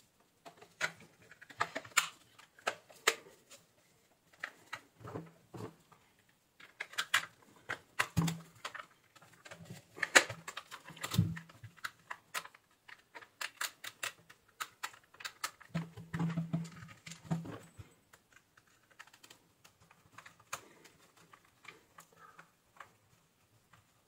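Irregular light plastic clicks and knocks from a hair dryer's plastic housing halves being handled and fitted together.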